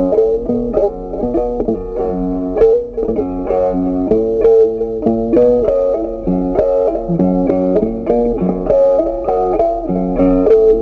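Background music: a quick-moving melody of short, sharply started notes over a steady lower line.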